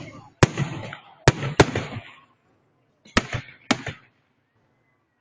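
Fireworks shells bursting: six sharp bangs, each followed by a rolling echo that dies away, three in the first two seconds and three more in quick succession about three seconds in, then a lull.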